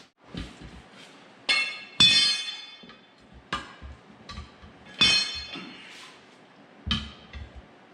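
Steel tire irons clanking against a steel tractor wheel rim while the tire is worked off the rim. About seven sharp metallic strikes, each ringing briefly, the loudest about two and five seconds in.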